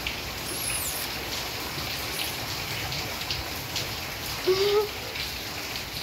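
Steady hiss of rain with scattered light patter. A brief high, falling squeak comes about a second in, and a short vocal sound a little after four seconds.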